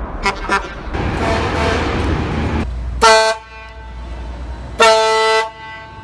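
BART legacy-fleet train's pneumatic air horn sounding two blasts, a short one about three seconds in and a longer one near the end, after a stretch of the train's running rumble.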